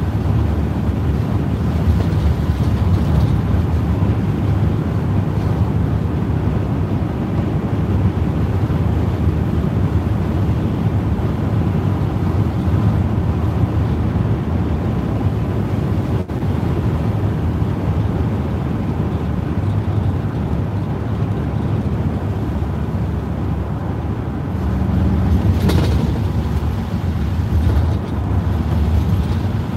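Steady low rumble of a vehicle driving on a wet highway, heard inside the cab: engine and tyre noise on the wet road surface. A brief louder swell near the end.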